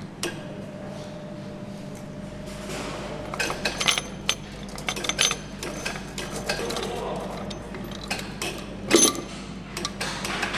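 Metal clicks and clinks of hand assembly as an aluminium cylinder head is lowered over guide studs onto an engine block, over the steady hum of a factory hall. The clicks come thick from about three and a half seconds in, with one louder knock about nine seconds in.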